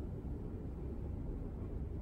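Room tone: a steady low rumble of background noise in a quiet room, with no voices and no distinct events.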